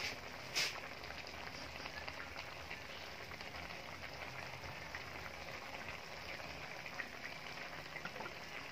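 Chicken pieces cooking in an aluminium wok, their juices making a faint, steady crackling sizzle. There is one short click about half a second in.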